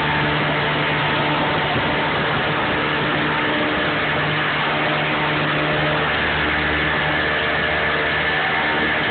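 A 25 hp outboard motor running at a steady, low hum inside a canal tunnel.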